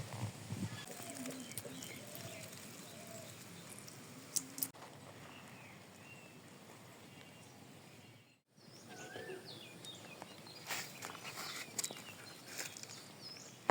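Rural outdoor background with birds giving short chirps now and then, and a few sharp clicks. The sound cuts out for a moment just past the middle.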